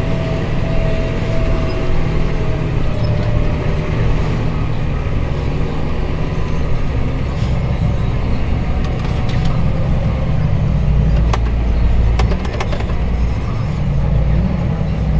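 Farm tractor engine running steadily under way, a continuous low rumble, with a few short clicks or rattles about eleven to twelve seconds in.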